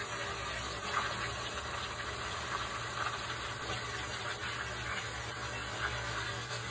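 Chicken pieces deep-frying in a pan of hot oil: steady sizzling with scattered small crackles and pops.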